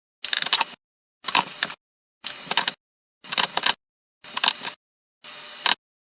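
Rapid clicking of a wrench turning the screw of a press that is pushing U-joint cups out of a driveshaft. It is heard in short half-second snippets about once a second, with dead silence between them.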